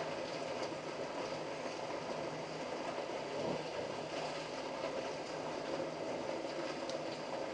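Steady rain falling during a thunderstorm, an even hiss with faint scattered ticks and a brief low swell a little under halfway through.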